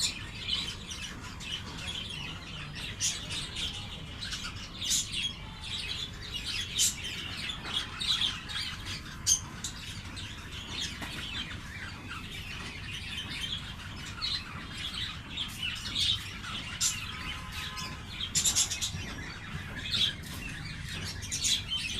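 Many small birds chirping together: a dense, overlapping chatter of short high chirps with louder single calls scattered throughout.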